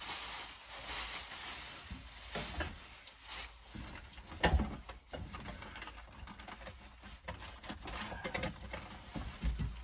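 Plastic bag rustling and crinkling as it is handled and pushed into a cabinet, with small knocks of things being moved, and one sharper knock about four and a half seconds in.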